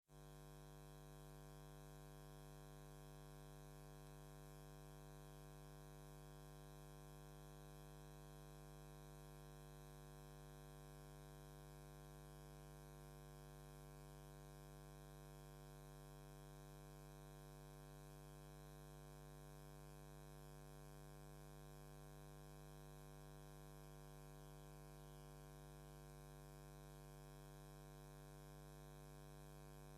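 Faint, steady hum of several held tones that does not change.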